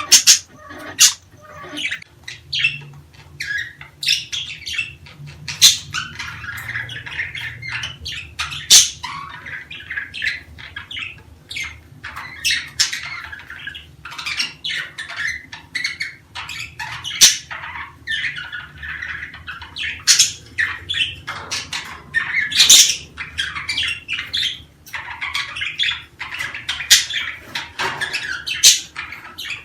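Budgerigars chattering: a steady warbling twitter broken by frequent short, sharp squawks.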